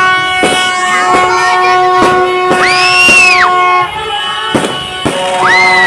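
Fireworks going off in sharp bangs, with a whistling glide about halfway through that rises, holds and drops away. Steady sustained tones sound underneath.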